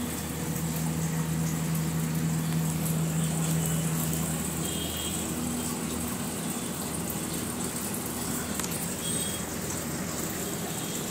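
Steady machine hum over an even rushing noise, with a stronger low hum tone for the first few seconds.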